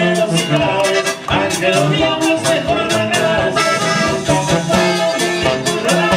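Live band music led by accordion, Mexican regional style, with a steady beat.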